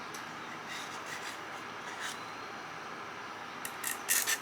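Faint steady hiss, then, near the end, a quick run of short scraping strokes, about five a second, as a small metal part, taken for copper, is scraped or rubbed by hand.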